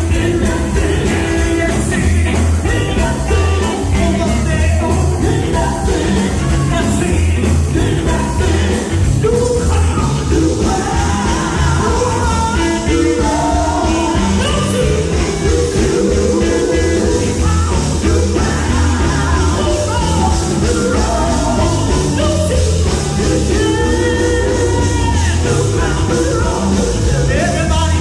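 Live gospel music: a women's vocal group singing into microphones over a band with electric guitar, loud and continuous through the hall's sound system.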